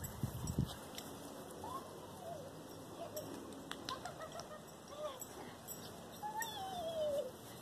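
Birds calling: several short gliding calls, then a longer falling call near the end. A brief low thud comes right at the start.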